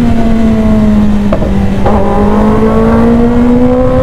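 Kawasaki ZX-10R's inline-four engine pulling on the road. Its pitch dips slightly, then climbs steadily as the bike gathers speed, over a heavy wind rumble on the bike-mounted microphone.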